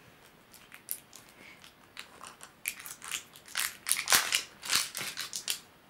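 Wrapper being torn and peeled off a plastic surprise egg by hand, crackling and crinkling in irregular sharp clicks that grow denser and louder in the second half.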